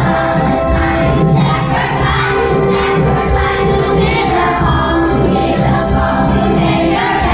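A children's choir of second graders singing together in unison over a musical accompaniment, holding long notes.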